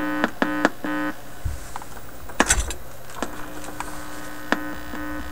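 Hum and buzz from the Viking solid-state record player's amplifier and speaker, turned way up with no record playing: the noise the owner takes to be inherent in record players of this vintage. There are a few short pulses of buzz in the first second and a click about two and a half seconds in. A steady hum comes in a little after three seconds and starts pulsing again near the end.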